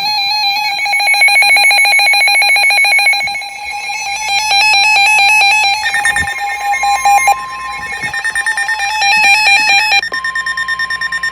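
NOAA weather radios sounding their alert alarms for a severe thunderstorm warning: rapid, evenly pulsed electronic beeping in several overlapping pitches. About six seconds in, the broadcast's steady warning alarm tone joins. It returns about ten seconds in and is held to the end.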